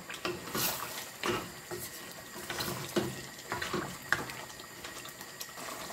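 Wooden spatula stirring curry sauce with lamb chops in an aluminium pot: irregular wet squelches and light knocks and scrapes against the pot.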